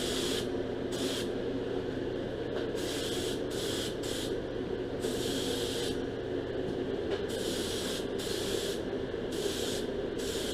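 Air-powered paint spray gun hissing in short bursts, roughly one a second, as it is triggered pass by pass to lay on a thin coat of paint, over a steady mechanical hum.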